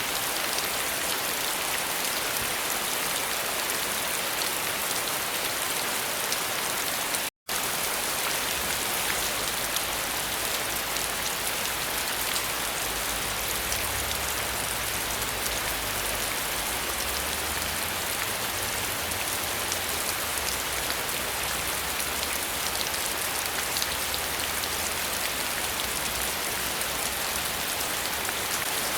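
Steady, heavy rain: a dense, even hiss of drops falling on surfaces. About seven seconds in it cuts out for a split second, then carries on, with a faint low rumble underneath in the later part.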